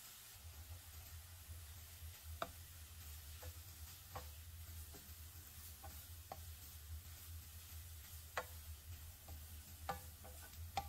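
A kitchen utensil clinking against cookware during stirring: about seven sharp, short knocks at irregular intervals over a low steady hum.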